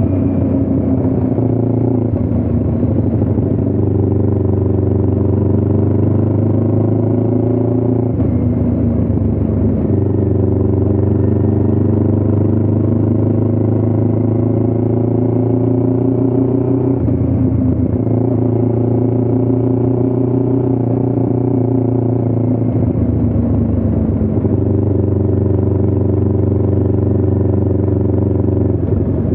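Motorcycle engine running steadily under way, its note breaking and dropping briefly three times, about 8, 17 and 23 seconds in, before settling again.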